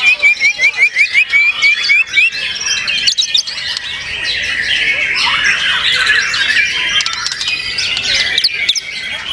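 White-rumped shamas singing together. It opens with a fast run of short rising notes, about five a second, for roughly two seconds, then breaks into a dense mix of overlapping song and chattering calls.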